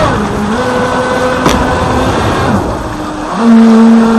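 RC jet ski's water-cooled 3660 brushless inrunner motor and KMB Jet 28 jet pump whining, with spray hissing underneath. The pitch steps up and down as the throttle changes and eases off about two and a half seconds in. Near three and a half seconds in it comes back louder and holds a steady pitch, with a single sharp click about halfway through.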